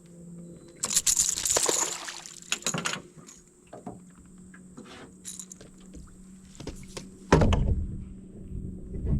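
Handling noises in a small fishing boat: a burst of water splashing about a second in, scattered knocks and clicks, and a heavy thump about seven seconds in, over a faint steady hum.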